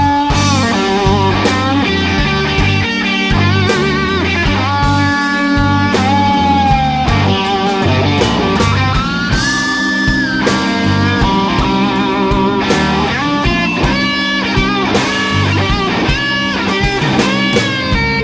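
Live blues-rock band playing an instrumental break: an electric guitar lead with long held, bent notes and vibrato over bass and drums.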